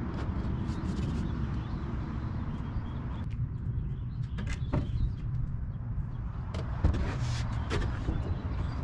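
Sheets of plywood being handled and laid onto a wooden drawer frame: scattered knocks and scrapes of wood on wood, a few louder knocks around the middle, over a steady low rumble.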